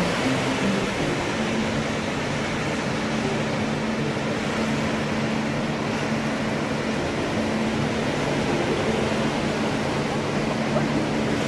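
Steady rushing noise of surf and wind, with a low steady hum held underneath.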